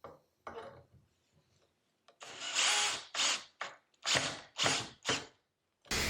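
Power drill run in about six short, stop-start bursts, starting about two seconds in.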